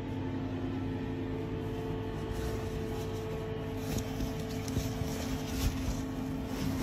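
Steady machine hum with several held tones underneath it. From about four seconds in there is light rustling as a cloth bag is pulled open.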